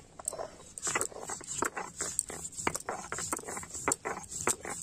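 Stone roller of a sil batta rolled and rocked over the flat grinding stone to grind turmeric: a rapid, irregular run of stone-on-stone knocks and scrapes, several a second.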